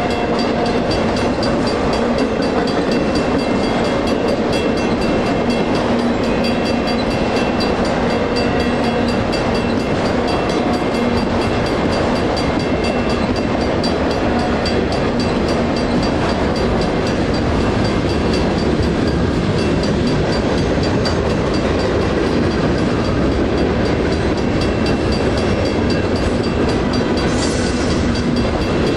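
Freight train cars rolling through a grade crossing with a steady rumble of wheels on rail. A single WCH mechanical crossing bell rings rapidly and steadily over it; the other bell at the crossing has died.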